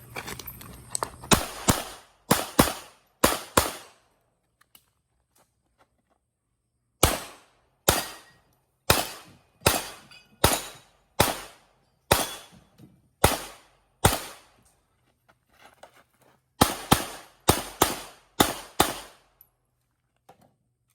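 HS2000 pistol fired rapidly on a timed run, about two dozen shots in three strings, many as quick double taps, with pauses of a few seconds between the strings.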